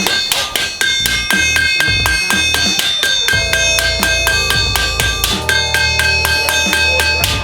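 Background music with a steady beat and bass over quick, regular metal hammer taps: a ball-peen hammer peening a roofing-nail rivet down into a pan head.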